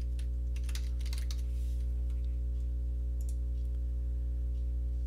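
Computer keyboard typing in a quick run for about a second and a half, then a few single clicks, over a steady low electrical hum.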